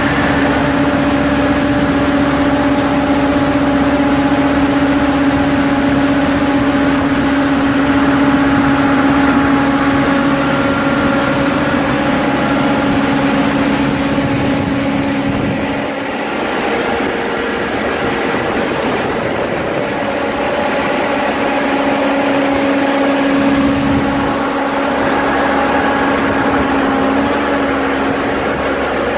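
Tamrock Ranger 500 crawler rock drill's diesel engine running steadily, with a constant hum that weakens for a few seconds about halfway through.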